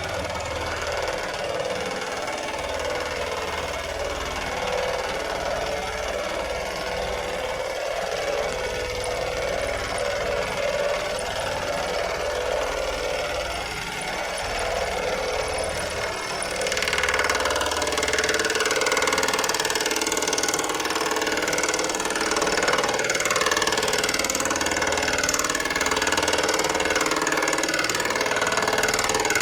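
Lawn mower engine running steadily; about two-thirds of the way through it grows louder.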